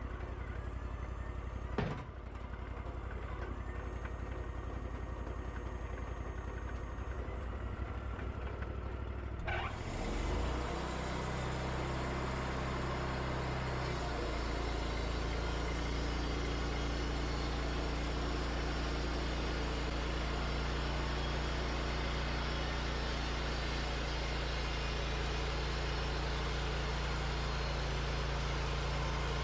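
Wood-Mizer LT40 band sawmill running, with a sharp knock about two seconds in. Near ten seconds in a steady hiss comes in suddenly and the engine note deepens under load as the band blade cuts into the red oak cant.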